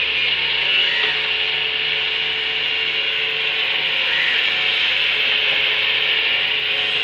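Crane working in soil, running steadily: a low engine hum under a continuous hiss.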